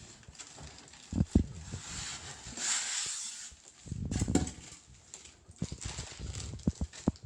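Parts of a juicer mixer grinder being handled: irregular knocks and clicks, with a cluster of knocks about four seconds in and a rustle lasting about a second and a half from about two seconds in. No motor is running.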